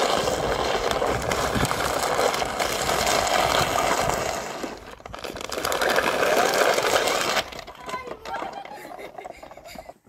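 Rough scraping of clothing on stone as a child slides seated down a smooth rock slab: a long scrape, a short break, then a second scrape that stops abruptly about seven seconds in.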